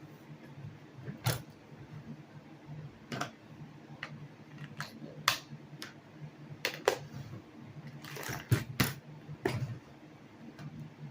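Irregular small clicks and taps of laptop parts and tools being handled during disassembly, about nine in all, some in quick pairs, over a steady low hum.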